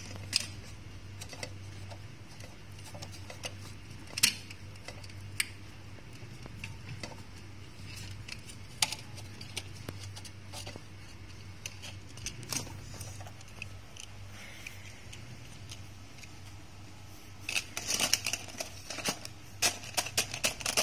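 Small toy cars clattering and clicking against one another and a plastic tub as a hand rummages through them near the end, after scattered single clicks and taps.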